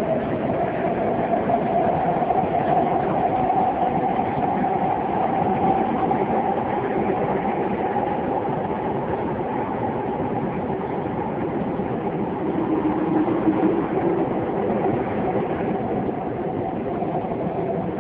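Tokyo Metro Fukutoshin Line subway train heard from inside the passenger car while running: a continuous rumble with a faint whine that drifts slowly in pitch, easing off a little near the end.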